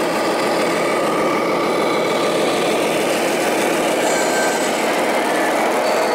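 An engine running steadily at an even idle.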